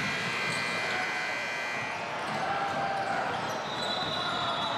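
A basketball being dribbled on a hardwood gym court during a game.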